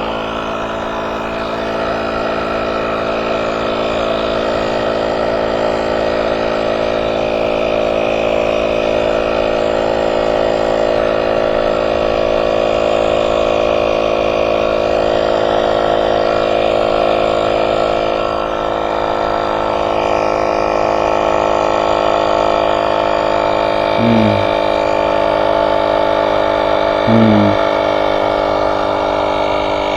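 Battery-powered portable tire inflator running steadily, its small motor-driven compressor pumping up an ebike tire, with two short louder blips about three seconds apart near the end.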